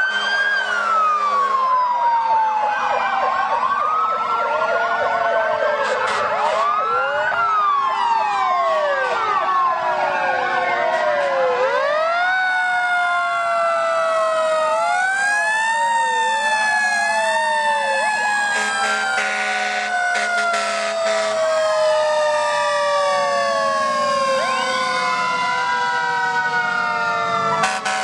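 Sirens of a line of passing fire engines and a police cruiser wailing together, many rising and falling tones overlapping.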